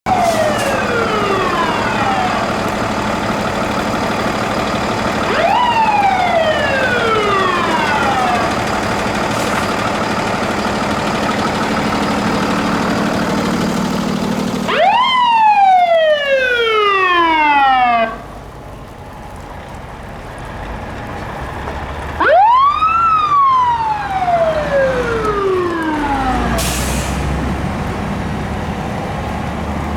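Fire truck electronic siren worked on manual, a Federal Signal PA300 type. It gives four sweeps, each a quick rise in pitch followed by a slow fall of about three seconds, over the steady running of the apparatus engines.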